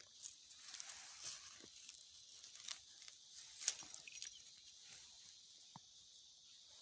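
Dry leaves and plant stalks rustling and crackling irregularly as they are handled and pushed through, with scattered small snaps and one sharper crack a little past the middle.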